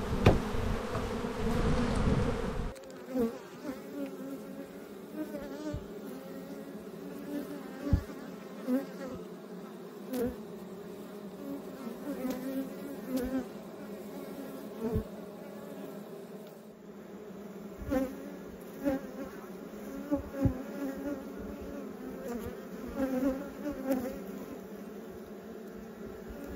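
Honeybees humming over the open frames of a hive, a steady buzz of many wings with a few scattered faint clicks, from a colony the beekeeper finds calm and gentle. In the first few seconds there is louder handling noise as the comb-laden plastic queen excluder is lifted away.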